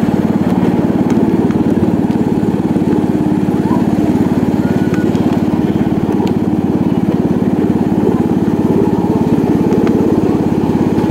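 Small engine running steadily with a fast, even pulse, as of a ride-on miniature railway locomotive under way.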